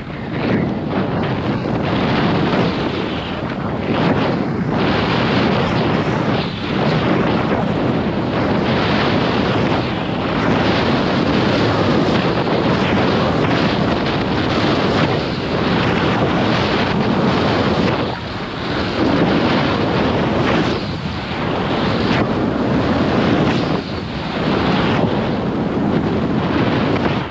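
Wind rushing hard over the camera's microphone during a downhill ski run into a strong headwind, mixed with the skis sliding on snow. It is loud and steady, with a few brief dips.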